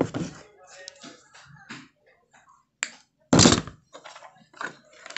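Scattered soft knocks and rustles as hands handle thin hookup wires over a plastic speaker housing, with one louder brushing burst about three and a half seconds in.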